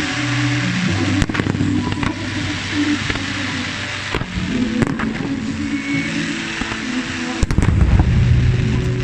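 Fireworks display: aerial shells bursting with sharp bangs and crackle, over music with held notes. About seven and a half seconds in, a tight cluster of louder bangs rings out as a volley of shells breaks together.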